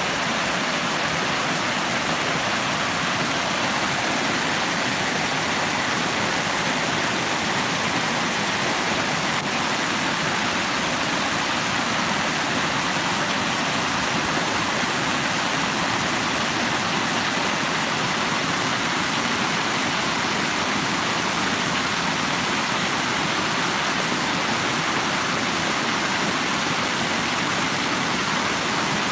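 Running water rushing steadily: an even, unbroken hiss with no changes.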